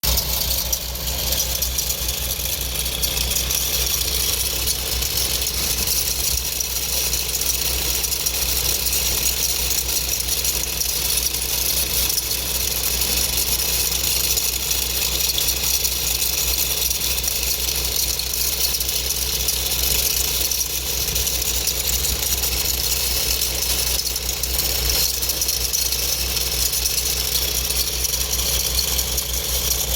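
Volkswagen Golf V R32's 3.2-litre VR6 engine idling steadily, with an abnormal noise that the owner traces to the turning accessory belt area on the left side of the engine.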